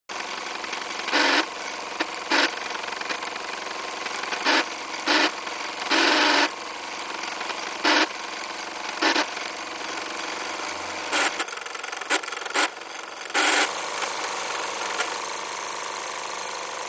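Model steam plant under steam: a steady hiss from the gas burner and small vertical boiler, broken by short, louder bursts of hissing every second or two. About three-quarters of the way through, the sound settles into a steadier hiss with a low hum beneath it.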